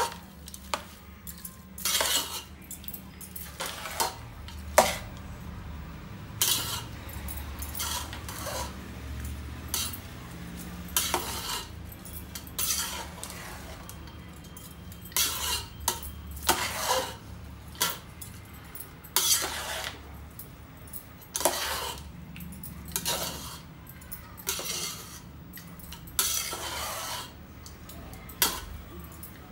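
A spoon scraping and stirring through cooked tamarind rice in a large metal pot, in repeated strokes every second or two, with the spoon now and then clanking against the pot's side.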